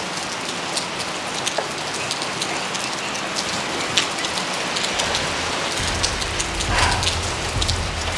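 Steady heavy rain falling on pavement, an even hiss dotted with sharp drop splashes. A low hum comes in about six seconds in.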